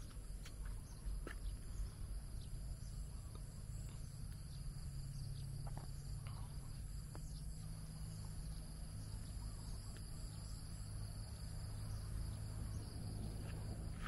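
Crickets and other insects calling steadily at several high pitches, over a low steady rumble.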